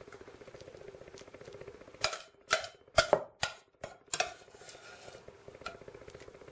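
A steady low hum runs under the window. Between about two and four seconds in it drops away, and a quick run of about six sharp clicks and knocks, like kitchenware on a counter, stands out as the loudest sound.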